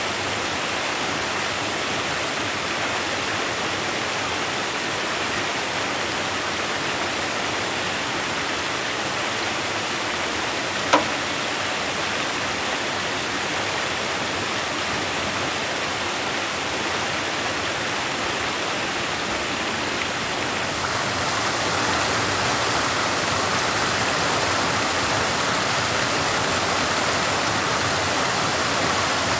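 Steady rushing noise, with one short sharp sound about eleven seconds in; it grows slightly louder about two-thirds of the way through.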